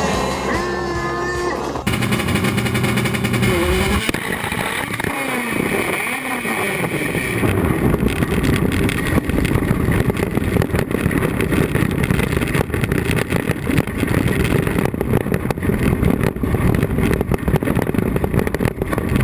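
Background music for the first two seconds, then a race car's engine heard from inside its stripped cabin: the revs rise and fall, and from about eight seconds in it runs loud and steady.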